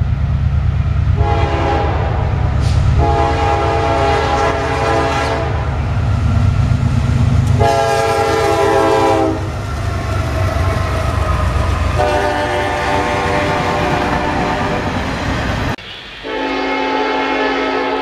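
Diesel locomotive air horn sounding four blasts, a short one then three long ones, over the low rumble of the train. About 16 s in the recording cuts abruptly to a different horn blast with no rumble under it.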